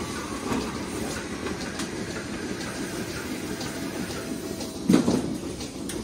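Milking parlour machinery running steadily, a rumbling mechanical drone with a light clacking texture, and a single louder clunk about five seconds in.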